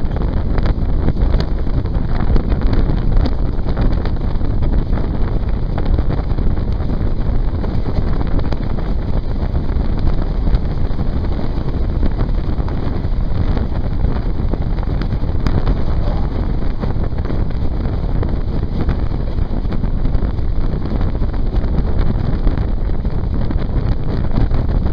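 Heavy wind buffeting the microphone at the open door of a moving passenger train, steady throughout, with the train's running noise underneath.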